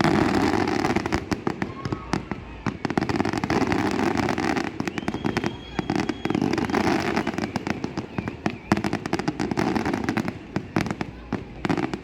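Fireworks display: a rapid, continuous barrage of bangs and crackling. A steady high whistle sounds for about a second and a half around the middle.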